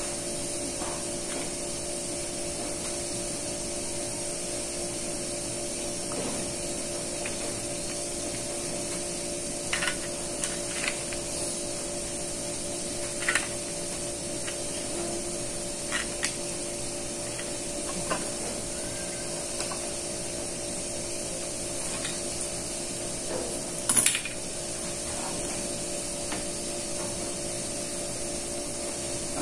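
A steady machine hum with a few light taps and crinkles of aluminium foil cake cups as they are handled while batter is piped into them. The loudest tap comes about 24 seconds in.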